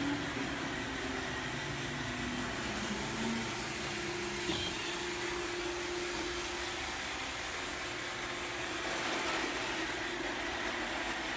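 Robot vacuum cleaner running, a steady whirring hum with low motor tones that shift in pitch during the first few seconds.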